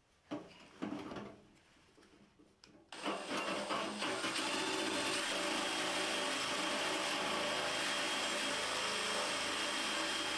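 Cordless drill turning a 2-inch hole saw through sheet metal. After a few light clicks, a steady cutting noise starts about three seconds in, with a high ringing tone through it: the saw is working and making its way through the metal.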